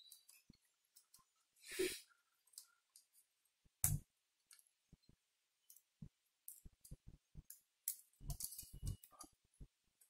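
Faint, scattered clicks and taps of a laptop's plastic casing and small parts being handled and pried apart during disassembly. There is a sharper knock about four seconds in and a run of small clicks towards the end.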